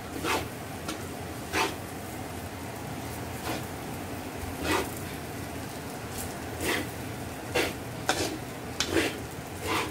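Metal spatula scraping and knocking against a stainless steel wok as fried rice is stirred and tossed, in irregular strokes about once a second, over a steady sizzle of frying.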